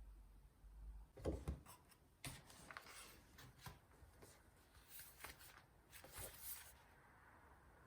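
Quiet handling sounds of a headphone box and its packaging being unboxed: a scattered series of light taps, clicks and rustles, starting about a second in.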